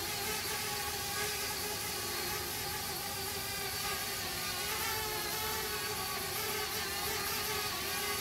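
Small quadcopter drone hovering, its propellers giving a steady buzzing whine made of several pitches at once. The pitch wavers briefly about halfway through.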